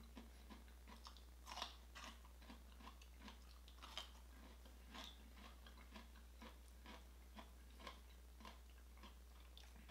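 A man chewing asparagus close to the microphone: faint, short wet crunches and clicks about twice a second.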